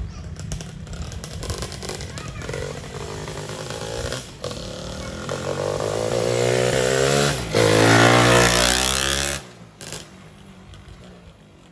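Tuned 116cc underbone racing motorcycle revving hard, its buzzing engine note climbing as it accelerates. It is loudest as it passes close by, about eight seconds in, then breaks off abruptly.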